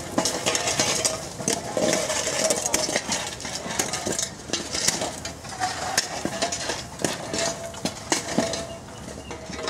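Dry brush and twigs crackling and rustling, with many irregular snaps and clicks as branches and vines are handled and trodden on.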